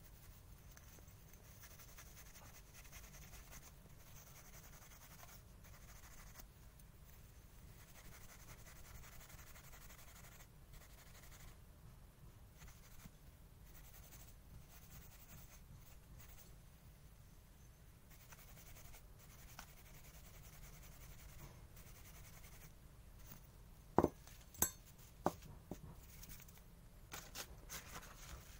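Steel wool scrubbing a stripped diecast toy car body, a faint, uneven rasping as leftover yellow paint comes off. Near the end come three sharp clicks less than a second apart, then a few softer ones.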